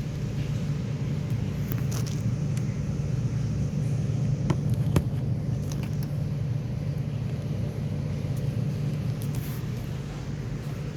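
Samsung Digital Inverter refrigerator running with a steady low hum, with a few faint clicks.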